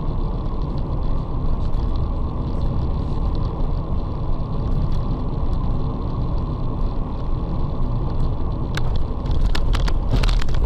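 Steady low rumble of a car driving along a wet road, engine and tyre noise heard from inside the cabin by the dashcam, with several sharp clicks close together near the end.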